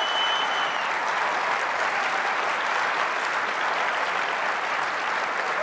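Large audience in an auditorium applauding steadily, with a thin high steady tone over it for about the first second.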